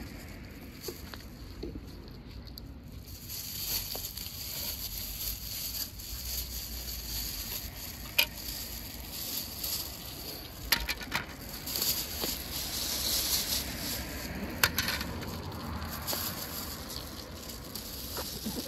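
Cats crunching dry kibble (karikari), chewing steadily, with a few sharp clicks now and then.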